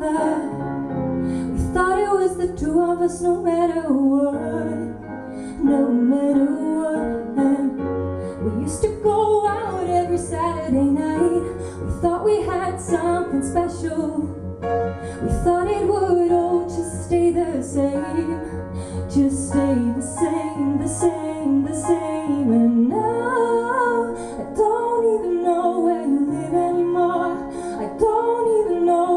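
A woman singing a slow melody live into a microphone, accompanying herself on an electric stage piano with held low bass notes and chords.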